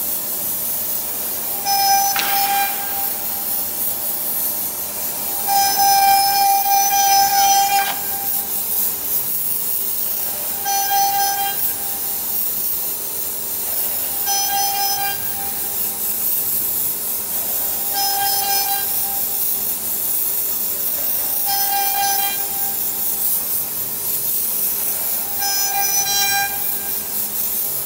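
Ginchoor 1325 CNC router spindle and bit cutting a fretwork pattern into a wooden board, a steady high hiss. A pitched machine whine rises out of it every few seconds, lasting about a second each time.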